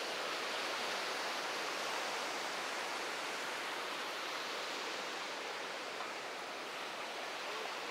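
Ocean surf washing on the beach, a steady, even hiss.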